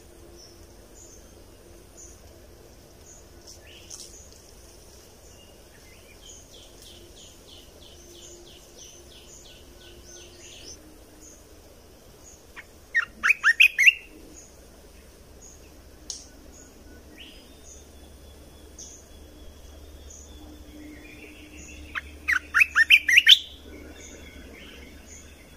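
Caged decoy red-whiskered bulbul singing two short, loud phrases of quick notes, about halfway through and again near the end. A softer run of evenly spaced notes comes earlier, over faint high pips repeating about once a second.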